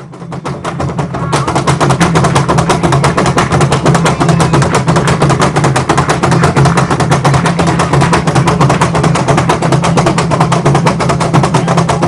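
Afro-Paraguayan Cambacua drums playing a fast, dense, driving rhythm, fading in over the first second or so and then holding at full level.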